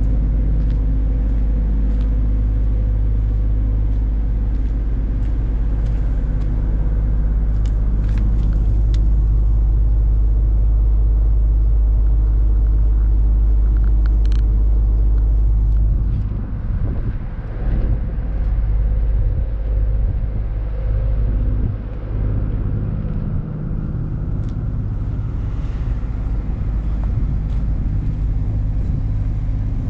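Thermo King SLX trailer refrigeration unit's diesel engine running at a steady speed, a low steady hum with several tones. For several seconds past the middle the sound turns uneven, with a few clicks.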